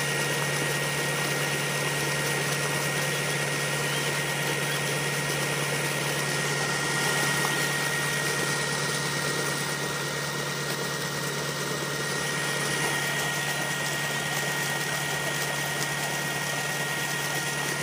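Tractor engine running steadily to drive a tubewell turbine pump, a constant hum with a thin high whine, over the rush of water gushing from the discharge pipe into a pit.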